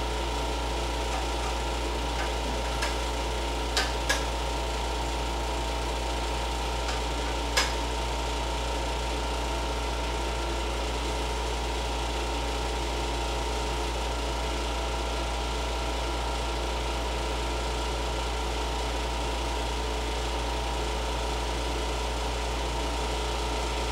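Window air conditioner running with a steady mechanical hum. A few light clicks come in the first several seconds.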